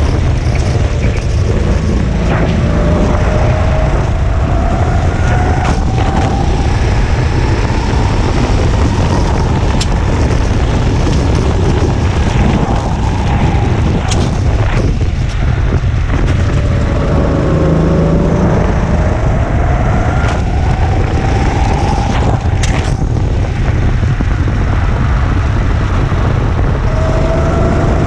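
Racing go-kart engine heard onboard over a heavy low rumble. Its pitch climbs slowly over several seconds as it accelerates, drops back, then climbs again, three times in all.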